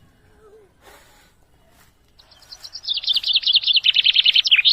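A songbird singing a fast trill of repeated high chirps, about ten a second, that starts about two seconds in and edges lower in pitch as it goes.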